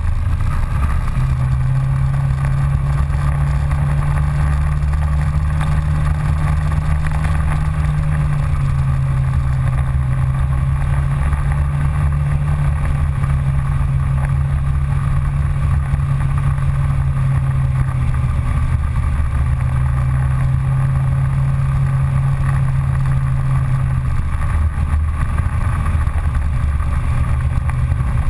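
Polaris Ranger side-by-side UTV engine running steadily while driving along a dirt trail, a constant low drone whose pitch dips and rises slightly a few times.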